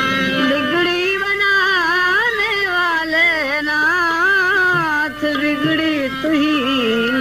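Indian devotional bhajan music: one melody line winding up and down with ornamented pitch bends.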